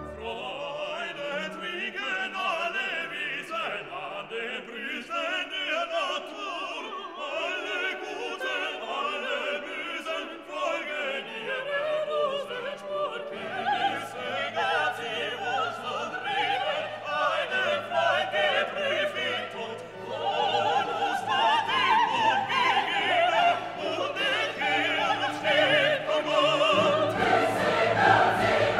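Background music: a classical piece with operatic singing over an orchestra, growing louder about two-thirds of the way through.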